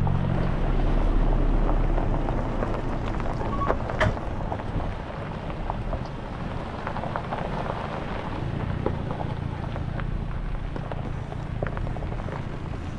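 Tow vehicle's engine running at low speed with a steady low hum, under a dense crackling noise with scattered clicks as it rolls slowly. The hum weakens about five seconds in and returns near the end.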